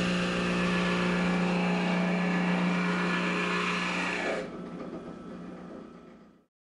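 Drill press running, its bit boring through melamine-laminated particleboard: a steady motor hum under a loud cutting noise. About four seconds in the cutting noise stops and the motor hum carries on, then fades out.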